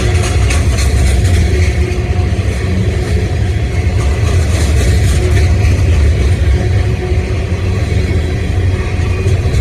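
Diesel-hauled freight train running by, a steady, loud low rumble with a faint engine drone and light clicking from the wheels.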